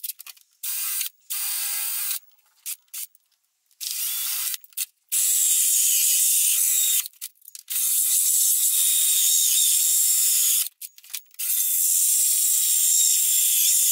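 Cordless drill with a hole saw cutting holes through a thin clear plastic storage box, a loud, hissing grind in several runs: a few short ones, then three longer ones of two to three seconds each.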